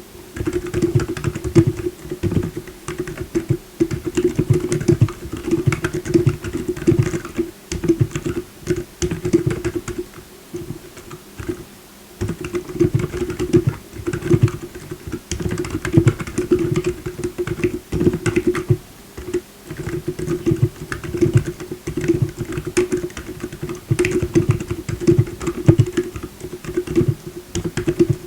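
Continuous typing on a tape-modded Redragon K617R mechanical keyboard fitted with Gazzew Bobagum silent linear switches and Cherry-profile keycaps: fast runs of soft, deep keystrokes with a couple of brief pauses.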